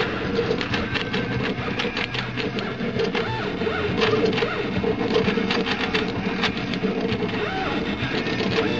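Home-built CNC pen plotter running, its drive motors moving the pen carriage with a steady hum and rapid ticking. Short whining tones come and go as the moves change.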